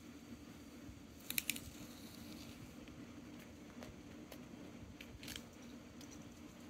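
A cat biting and clawing at the string of a rod-type cat toy: a quick cluster of sharp clicks about a second and a half in, then a few fainter scattered ticks, over a steady low room hum.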